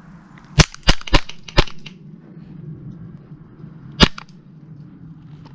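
Airsoft rifle firing single shots: four sharp cracks in quick succession about half a second in, then one more about four seconds in.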